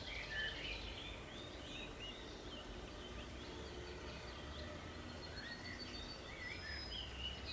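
Outdoor meadow ambience: several small songbirds singing and chirping continuously in short warbling phrases, over a steady low rumble. No duck quacking stands out.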